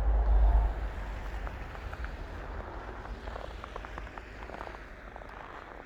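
Footsteps crunching in snow, a scatter of short crackling crunches that slowly fade. Wind buffets the microphone with a low rumble for about the first second.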